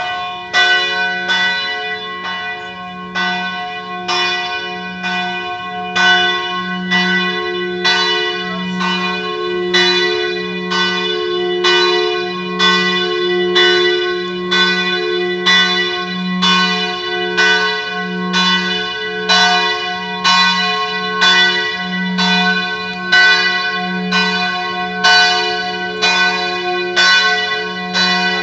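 Church bell ringing, struck in a quick, even run of about two strokes a second. The bell's low hum carries on between strokes. It starts suddenly and keeps going.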